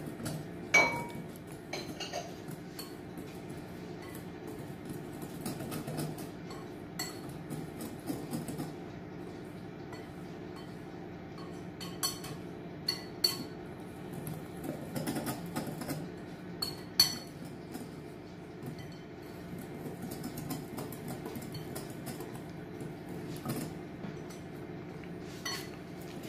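Flour and sugar being mixed by hand in a glass bowl, with scattered sharp clinks against the glass, the loudest about a second in and about seventeen seconds in.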